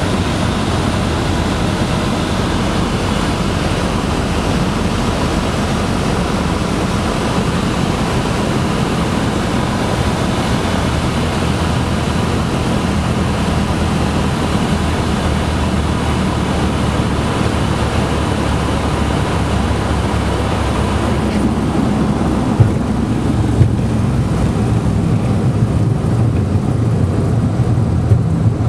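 Cabin noise of a Cessna 152 landing: the four-cylinder Lycoming engine's drone mixed with rushing air. About two-thirds through the rushing eases, and a few sharp knocks follow as the wheels run along the runway.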